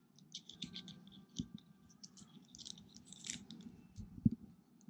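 Faint clicks, scrapes and light knocks of hard plastic as a 1995 McFarlane Toys Diehard action figure's missile launcher is handled and its missile fitted back in for another shot. The two sharpest knocks come near the end.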